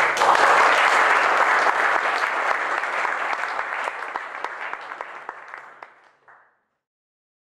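Audience applauding at the close of a talk, loudest at first and dying away over about six seconds before the sound cuts off.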